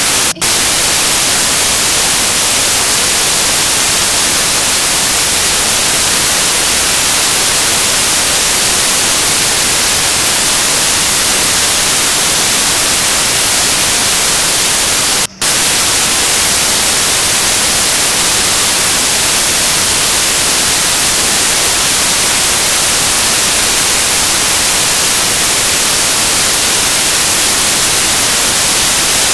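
Loud, steady hiss of static like white noise, with two very short dropouts, one right at the start and one about halfway through.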